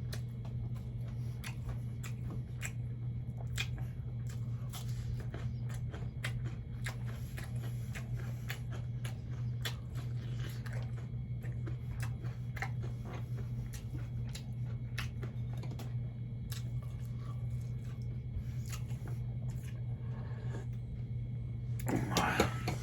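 Close-up eating sounds of a person chewing fried catfish and rice: many small wet mouth clicks and smacks over a steady low hum, with a louder, busier stretch of chewing near the end.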